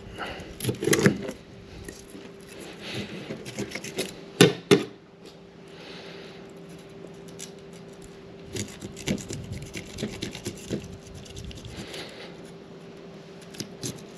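Serrated fillet knife sawing and scraping through the tough scales and along the backbone of a black drum: irregular scratchy, crunching strokes, with two sharp loud ones about four and a half seconds in. A faint steady hum sits underneath.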